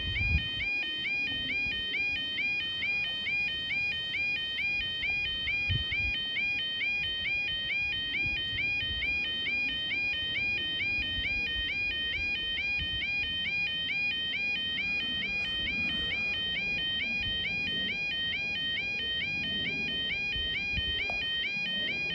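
Level crossing yodel alarm: a steady, rapidly repeating electronic warble sounding while the half-barriers are down, the warning that a train is approaching.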